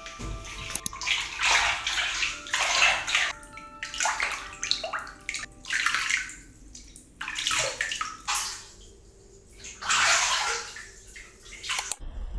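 Water splashing and pouring in a bathtub, in a series of short, irregular gushes.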